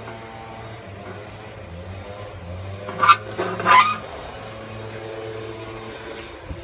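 Steady hum of a running HVAC package unit, with two short, sharp, loud noises about three seconds in and again half a second later.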